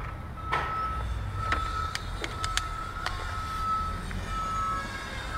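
Several sharp clicks and knocks of hand tools and engine parts being handled in an engine bay, over a low rumble and a steady high tone that breaks off and returns.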